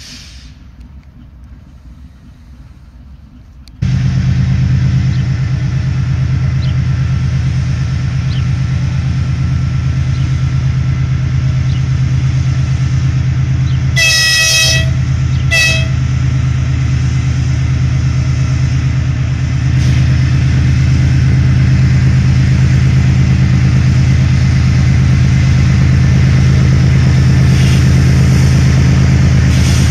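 The V12 diesel engine of a GE TE33AC locomotive running with a steady low drone, which starts abruptly about four seconds in after a faint rumble. About ten seconds later its horn sounds: one blast of about a second, then a short second blast.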